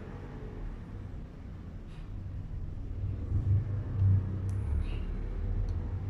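A low, uneven background rumble with a few faint clicks.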